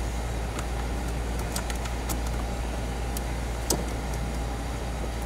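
Steady low background hum, with faint scattered clicks and rustles as a rubber vacuum hose is fed by hand through the engine bay.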